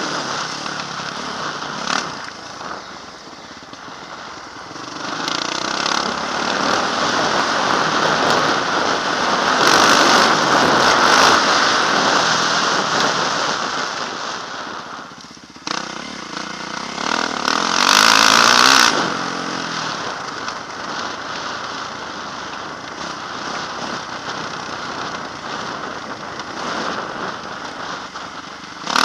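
Yamaha motocross bike's engine running under a rider's throttle, swelling and easing as it rides the dirt track, loudest about ten and eighteen seconds in, mixed with a rush of wind on a helmet camera.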